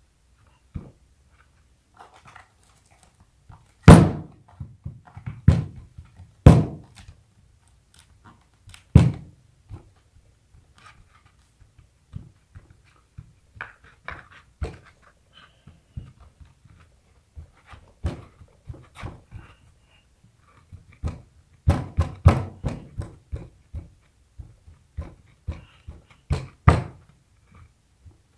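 Hands pressing and rubbing clear grip tape down hard onto a skateboard deck to work out air bubbles, the deck knocking against the table in scattered dull thunks, with a quick run of them about two-thirds of the way through. Soft rubbing of palms on the tape fills the gaps.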